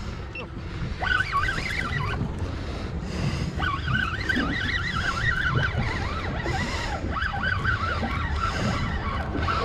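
Spinning reel being cranked to bring in a hooked fish, its gears giving a wavering whine that rises and falls in pitch, pausing briefly about two seconds in, over steady low wind and water noise.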